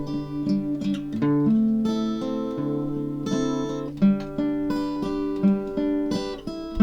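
Instrumental song intro on acoustic guitar, with chords strummed and notes picked and left ringing; no singing.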